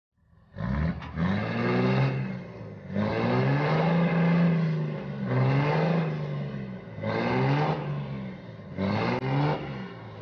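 Pickup truck engine revving hard under load in about five surges, the revs rising and falling with each, as it pulls a tree stump out of the ground on a chain.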